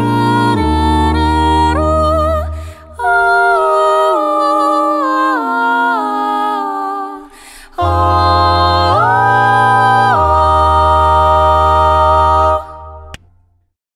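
A cappella vocal group singing an imitation of a familiar jingle or theme in sustained, harmonised chords, with a deep bass voice under the first and last phrases. It comes in three phrases: the middle one steps downward without the bass, and the last swells upward in pitch about nine seconds in before the voices stop shortly before the end.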